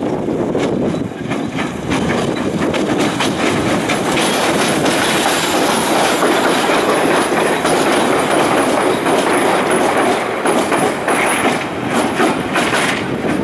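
Hythe Pier Railway's small electric train running past along the pier track, its wheels clattering on the rails. A high squeal from the wheels comes in about four seconds in and fades out around eleven seconds.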